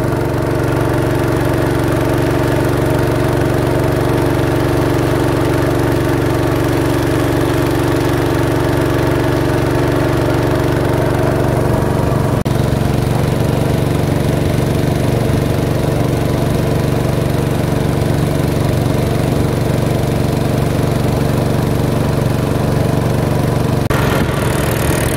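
Small wooden motorboat's engine running steadily at cruising speed, with the hiss of water and wind as the boat moves along the river.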